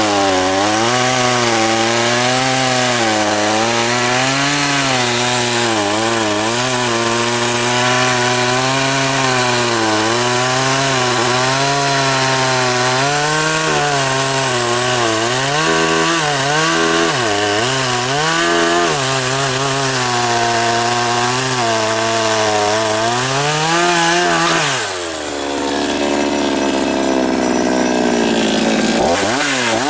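Chinese 52cc two-stroke chainsaw with an 18 inch bar and a cheap chain cutting through willow logs, the engine pitch dipping and recovering as it loads up in the cut. About 25 seconds in it drops to idle, with a brief rev near the end.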